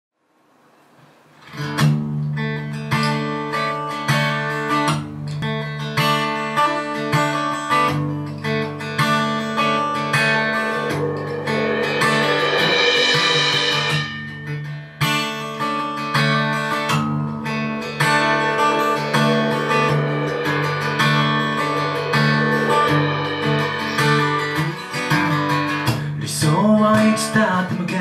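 Acoustic guitar intro played live: picked notes ringing over sustained low strings, fading in about a second and a half in.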